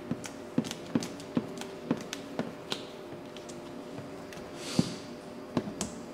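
Irregular taps and clicks of hands working wet clear plastic paint protection film against a car seat, a few a second, over a faint steady hum, with a brief hiss about three-quarters of the way through.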